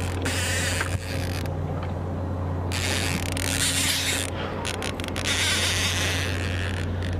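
A baitcaster reel's drag ratchet rattling as a hooked fish pulls line off against the drag, in three long runs with a few short clicks between the second and third. A steady low hum runs underneath.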